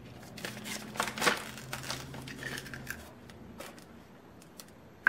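Plastic zipper bag crinkling and eggshell crackling as a raw egg is pulled open and dropped into the bag, with the loudest crackles about a second in. A faint low hum sits underneath for the first three seconds.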